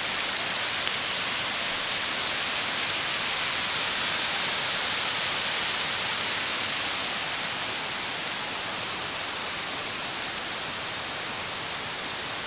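Rain-swollen mountain creek rushing down rocky cascades: a steady wash of white-water noise that eases slightly toward the end.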